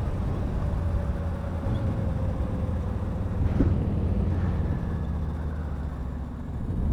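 Riding noise from a modded electric Razor scooter on a 5 kW hub-motor kit: a steady low rumble, with a faint motor whine sliding slowly down in pitch over the first few seconds and a single knock about halfway through.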